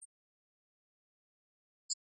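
Near silence, broken by two very short high-pitched chirps, one just at the start and one near the end.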